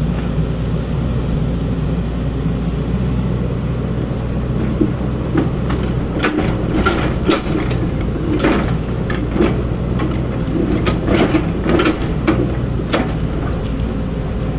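Hydraulic excavator's diesel engine running steadily while digging, with a run of sharp metallic clanks and knocks from about a third of the way in until near the end.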